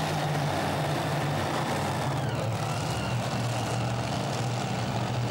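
Four methanol-fuelled, supercharged Keith Black Hemi V8 engines of a modified pulling tractor running steadily at low revs.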